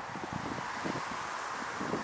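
Airbus A380's four jet engines on landing, heard as a steady rushing noise, with gusts of wind buffeting the microphone.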